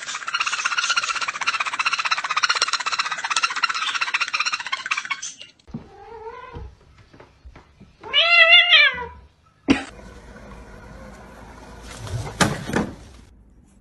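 A pet parrot's rapid, buzzing chatter for about five seconds, then a house cat meowing twice, first a short meow and then a loud, drawn-out one, followed by a sharp click.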